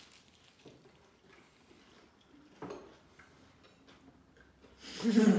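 A few light clicks of tableware against a quiet room while people eat, then a person's voice breaks in loudly near the end.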